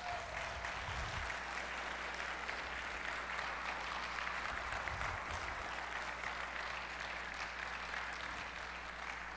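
Church congregation applauding, a steady patter of many hands that tapers off a little near the end.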